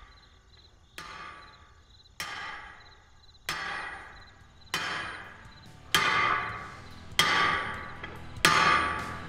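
Hammer striking metal, seven evenly spaced blows a little over a second apart, each ringing briefly and each louder than the last.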